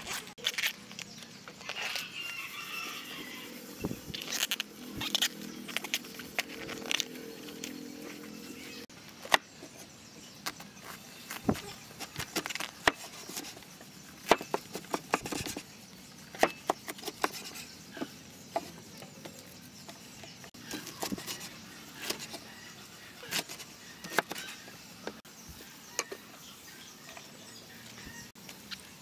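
Steel cleaver chopping a banana blossom on a wooden cutting board: a long string of sharp, irregular knocks, some in quick runs. Chickens cluck in the background during the first several seconds.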